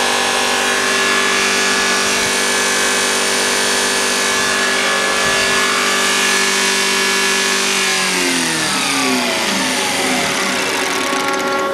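Diesel injection-pump test bench driving a Bosch four-cylinder M-type inline injection pump during a fuel-delivery test, running at a steady speed with a many-toned mechanical hum. About eight seconds in, its pitch falls steadily as the bench winds down.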